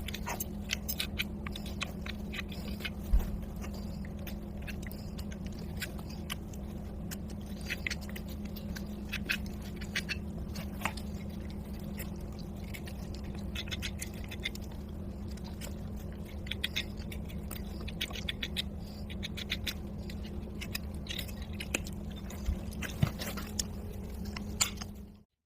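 A horse's hoof being trimmed: many short, crisp scraping and cutting strokes over a steady low hum. The sound cuts off abruptly near the end.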